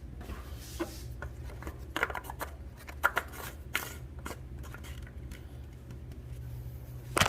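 Scattered clicks and rustles of things being handled, over a steady low hum.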